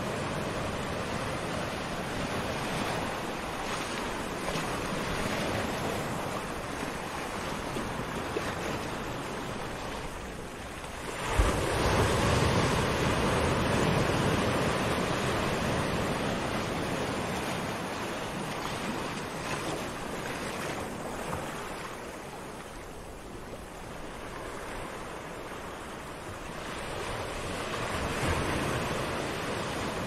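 Small sea waves washing onto a sandy beach in a steady hiss, with a larger wave surging in about eleven seconds in and the wash building again near the end.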